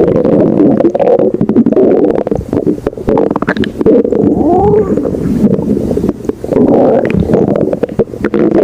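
A hungry stomach growling loudly: a near-continuous gurgling rumble with small pops, with a few squeaky notes that rise and fall about four seconds in.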